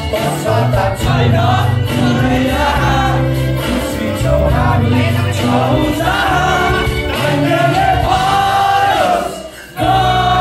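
A dance song with singing over a steady bass beat, playing loud; the music drops out for a moment near the end.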